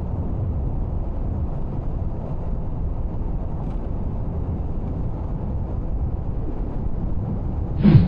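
Motorcycle riding at road speed: steady low engine rumble mixed with wind noise on the microphone. Just before the end another motorcycle passes close by, briefly louder, its note dropping in pitch.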